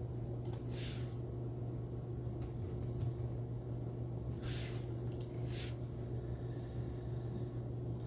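Steady low electrical-sounding hum, with a few brief soft hissy rustles or breaths over it.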